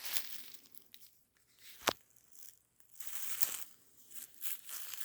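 Footsteps and body pushing through dense brush and dry leaf litter: irregular crunching, crackling and scraping of vegetation, with one sharp snap about two seconds in.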